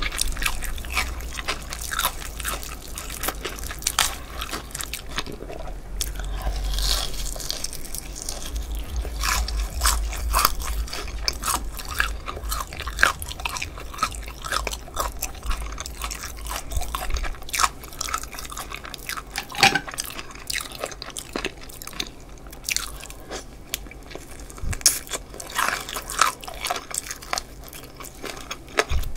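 Close-miked biting and chewing of crispy fried chicken: the fried crust crunching and crackling with many sharp snaps as it is bitten and chewed.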